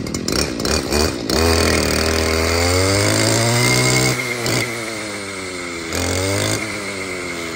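Japanese-made 26cc two-stroke brush cutter engine, just started, running at idle and then revved hard for about three seconds before dropping back to idle; it is blipped up again briefly near the end.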